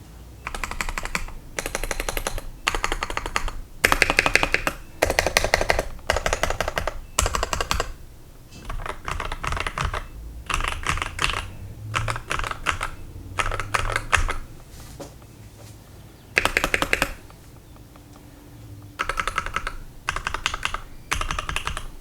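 Typing on a custom 65% mechanical keyboard: a KBDFans acrylic Tofu 65 case with an aluminium plate, Gateron Yellow linear switches lubed with 205g0, and MT3 keycaps. Quick runs of keystrokes come in bursts of a second or two, with short pauses between.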